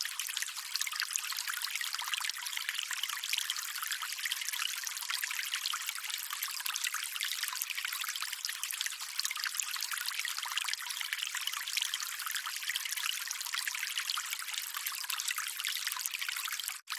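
Running water trickling steadily, an even bright hiss with no low rumble. It cuts out for an instant near the end.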